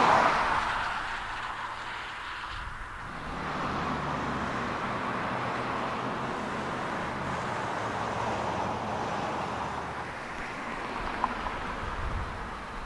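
Road traffic. A passing car fades away over the first two seconds, then the tyre and engine noise of more passing cars builds and holds steady.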